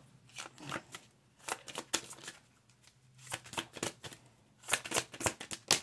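A deck of reading cards shuffled by hand: a string of short, sharp card flicks and taps in uneven clusters, coming thickest near the end.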